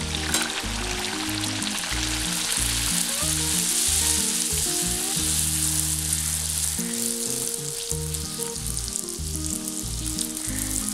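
A poori deep-frying in hot oil, sizzling steadily as it is pressed under a wire strainer to puff up. The sizzle is loudest a few seconds in and eases a little toward the end.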